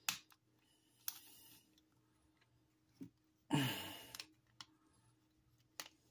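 Plastic parts of a Transformers Studio Series Hot Rod action figure clicking and snapping as they are folded and tabbed together into car mode: a handful of sharp clicks, with one longer, louder rasp about halfway through.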